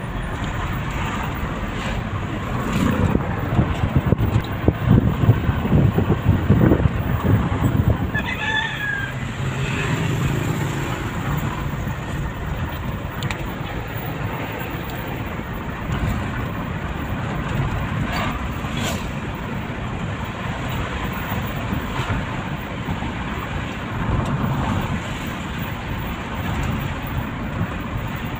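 Steady road and engine noise inside the cabin of a moving car, with heavier low rumbling and knocks for a few seconds near the start. A brief high call is heard outside about nine seconds in.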